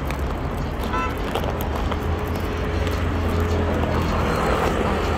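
Street traffic rumbling steadily, with car noise, heard while walking along a pavement. A brief high chirp comes about a second in.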